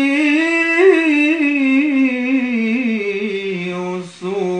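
A man's voice singing in Arabic tarab style, drawing out one syllable in a long ornamented melisma whose pitch wavers and slowly sinks, with a short break about four seconds in.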